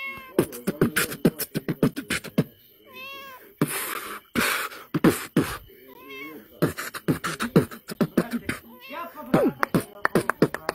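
A person beatboxing, a fast run of mouth-made kick and snare clicks, with a cat meowing several times in between the beats. A breathy hiss sounds briefly about four seconds in.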